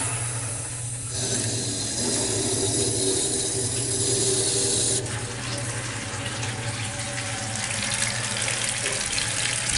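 American Standard Champion 4 toilet tank filling through its fill valve after the water supply is turned on: a steady rush of water running into the tank, its sound changing abruptly about five seconds in.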